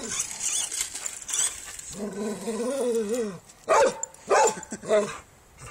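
Dog barking at a remote-control car: a drawn-out wavering whine about two seconds in, then three sharp barks about half a second apart.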